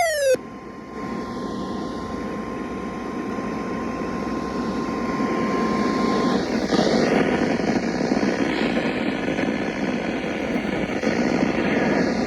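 Weather radio receiving the NOAA Weather Radio 1050 Hz warning alert tone as a steady single tone under heavy hiss. The tone cuts off about six seconds in, and the hiss carries on. A brief falling sweep is heard right at the start.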